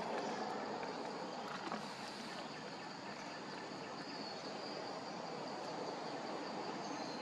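Steady outdoor background noise with a faint high insect buzz.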